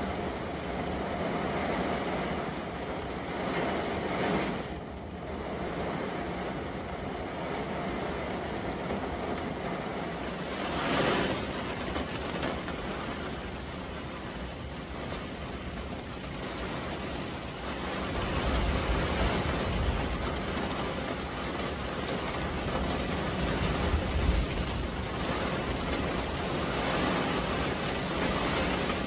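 Heavy rain pelting a car's windshield and roof, heard from inside the car as a steady rushing hiss that swells briefly about eleven seconds in. Later, gusts of wind buffeting the car add a low rumble.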